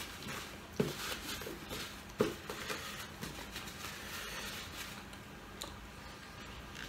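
Close-up eating sounds: chewing and wet mouth noises, with two sharper smacks about one and two seconds in.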